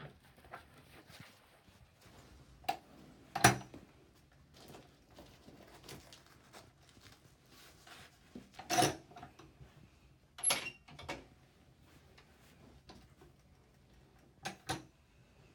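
A few scattered short knocks and clicks, the loudest about three and a half seconds in and another strong one near nine seconds, with quiet between them.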